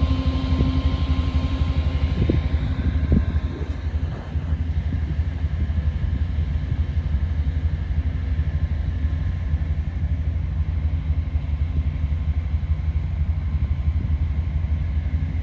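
Heavy farm machinery running with a steady low engine rumble, with a few short knocks in the first few seconds.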